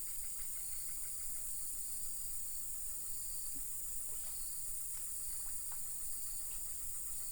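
Steady high-pitched drone of insects, with a fast, even chirping pulse underneath and a few light clicks.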